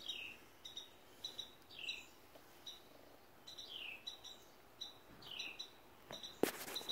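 A bird calling repeatedly, each call a short high note followed by a whistle that slides downward, repeated several times in a loose series. Near the end a few sharp rustling knocks begin.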